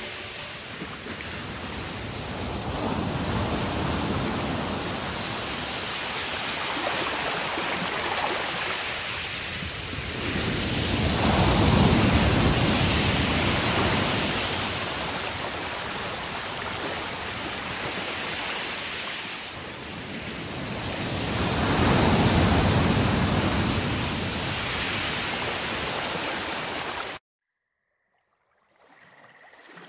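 Rushing noise of waves, swelling and falling back about every nine to ten seconds, cutting off abruptly near the end.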